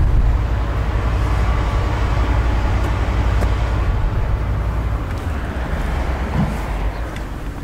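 Volkswagen Caravelle T6's 2.0 TDI four-cylinder turbodiesel idling with a steady low drone.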